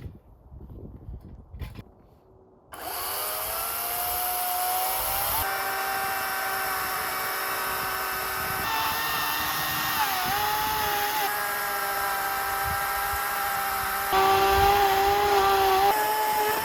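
Chainsaw on an Alaskan chainsaw mill starting up about three seconds in, revving up and then running steadily at high speed as it cuts through a log, with small dips in pitch and a louder stretch near the end.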